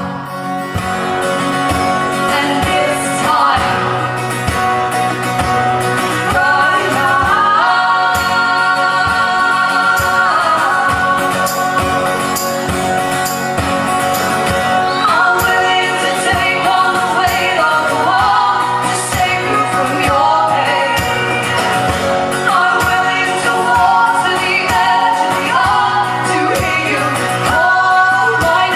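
Live music: female singing, with held and sliding sung notes, over strummed acoustic guitar.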